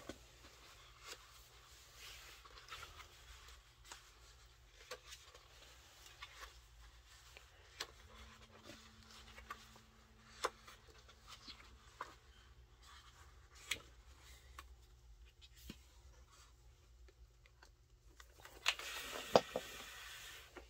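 Pages of a large hardcover photobook being turned and handled: quiet paper rustling with scattered small taps and clicks, and a louder rustle near the end as a page is swept over.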